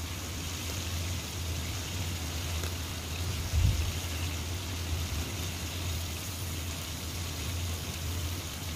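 Pieces of salted fish frying in shallow oil in a steel wok, a steady sizzle over a low hum, as they are turned with metal tongs. A low thump about three and a half seconds in.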